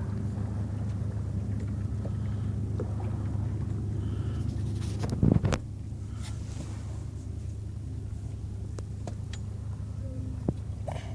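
A boat's engine running steadily with a low hum. There is a single loud knock a little over five seconds in, after which the sound is slightly quieter.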